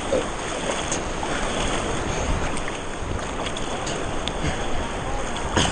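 Rushing whitewater rapids with wind on the microphone, a steady churning noise; a brief knock or splash near the end.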